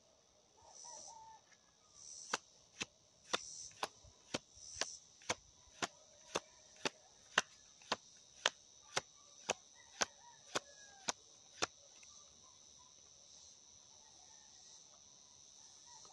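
A deck of tarot cards being overhand-shuffled by hand, the dropped packets landing in sharp, evenly spaced clicks about two a second, which stop after about twelve seconds. A steady high-pitched insect drone goes on underneath.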